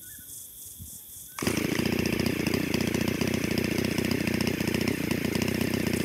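A small two-stroke power-tool engine of the chainsaw type starts suddenly about a second and a half in and runs loudly and steadily with a fast, even buzz.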